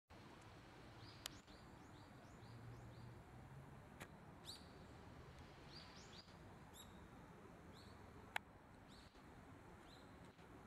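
Faint outdoor ambience: small birds chirping over and over in short, high chirps over a low background hum, with three sharp clicks, the loudest late on.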